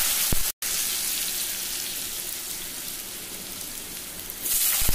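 Cut potatoes sizzling in hot oil in a kadai tempered with cumin seeds, dried chillies and bay leaves. The hiss is loud and steady, cuts out for an instant about half a second in, eases slightly, then flares up again near the end.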